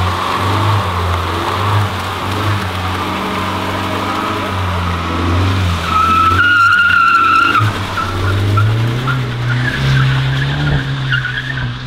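2018 Honda Civic Type R's turbocharged 2.0-litre four-cylinder held at high, steady revs while its front tyres spin in a burnout. A tyre squeal comes about six seconds in, and the engine note rises near the end as the car moves off.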